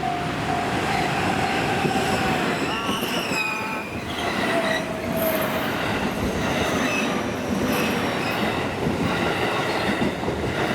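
A JR local electric commuter train runs past at close range, slowing as it pulls into the station, with steady rumble and clatter from the wheels on the rails. High-pitched squealing from the wheels comes in about two and a half seconds in and lasts a little over a second.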